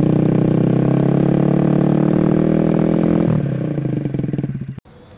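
Kawasaki Z125 Pro's 125 cc single-cylinder four-stroke engine running through a Brock's Alienhead stainless full exhaust, held at raised revs with the pitch creeping up slightly. About three seconds in the throttle is let off and the revs fall away, and the sound cuts off abruptly near the end.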